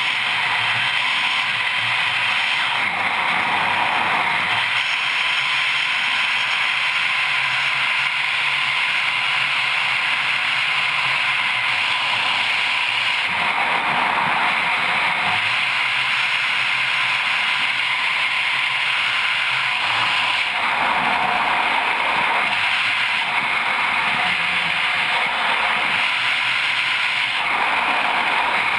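Steady rush of wind over the microphone of a skydiver's helmet camera in freefall, changing in tone abruptly a few times.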